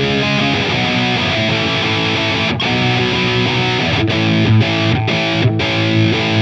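Donner Hush-X headless electric guitar played with a distorted drive tone in passive pickup mode on its humbucker, a riff of sustained chords and notes. Several brief, sharp stops break up the playing in the second half.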